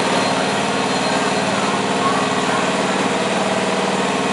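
Lawn and garden tractor engine idling steadily.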